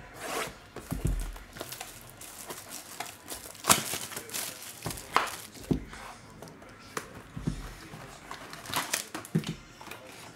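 Plastic shrink-wrap crinkling and tearing as a sealed box of hockey cards is unwrapped, then the cardboard box opened and foil card packs handled. It comes as a string of sharp crackles and taps, loudest about four seconds in.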